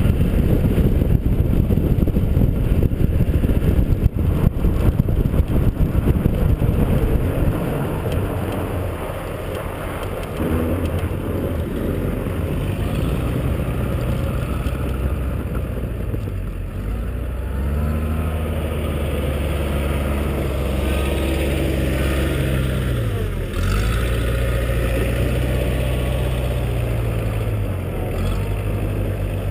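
Wind buffeting and tyre rush on a camera mounted outside a pickup driving on a snowy road, easing off after about seven seconds as it slows. Then a diesel engine running steadily close by, its pitch rising and falling for a few seconds in the middle.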